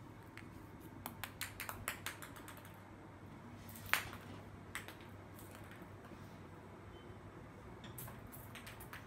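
Plastic ping pong ball clicking and bouncing on a hard stone floor as a cat bats it about: a quick run of light clicks, one sharper, louder click about four seconds in, and a few more clicks near the end.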